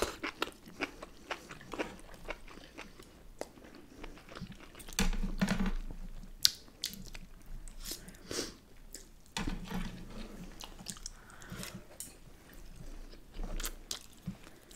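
People chewing and biting food close to a microphone: wet mouth clicks and some crunching, with louder stretches about five seconds and nine and a half seconds in.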